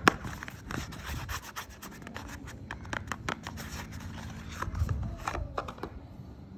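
Dry soap being rubbed and scratched by hand, with irregular scratchy strokes and small sharp clicks, and a duller knock about five seconds in.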